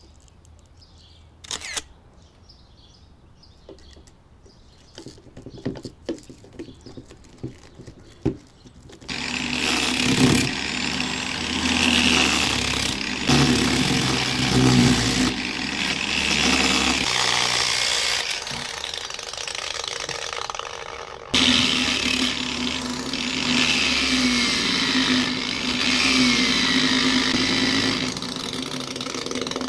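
A few light clicks and taps as a sanding disc is pressed onto the grinder's hook-and-loop backing pad. Then, about nine seconds in, an angle grinder starts up and runs with a knife blade made from an old car spring held against its sanding disc, grinding the steel. Around the middle the motor's pitch falls for a few seconds, then it jumps back up to speed and keeps running.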